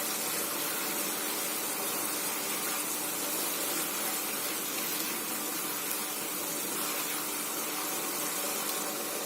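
Pan of Maggi instant noodles boiling on the stove: a steady, even bubbling hiss.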